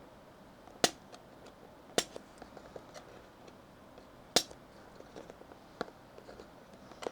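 Keys on a Cidoo V21 aluminium-cased mechanical numpad being pressed one at a time: three sharp clacks at irregular gaps of one to two seconds, with fainter clicks in between.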